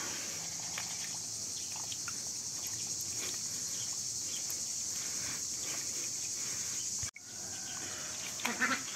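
Steady high-pitched insect chorus of crickets or cicadas. Under it come soft splashes of hands pressing dry flatbread into a bowl of water. A few short, louder duck calls come near the end.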